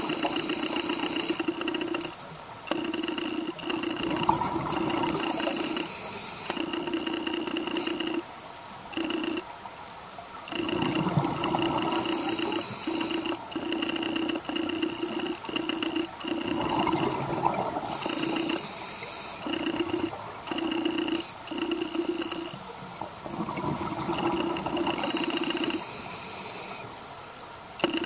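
Scuba regulator breathing underwater: a bubbly gurgle of exhaled air about every six seconds, each followed by a brief hiss of inhalation, over a two-tone hum that keeps cutting in and out.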